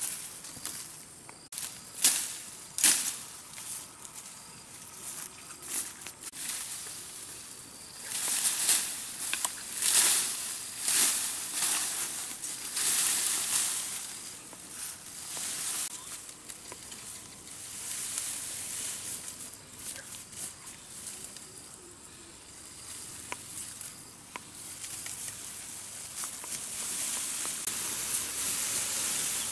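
Irregular rustling in short bursts of a second or less, with a faint steady hiss between them.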